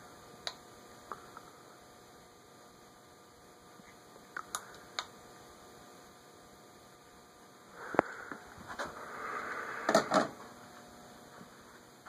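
Fanimation Xonix ceiling fan coasting down after being switched off, blades still turning, with a faint steady hum. Scattered clicks run through it, with a sharp knock about eight seconds in and a burst of rustling and clicks around ten seconds.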